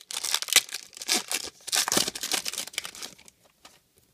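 Foil-lined trading card pack wrapper crinkling and tearing open in the hands, a dense crackle that dies away about three seconds in and leaves a few soft ticks.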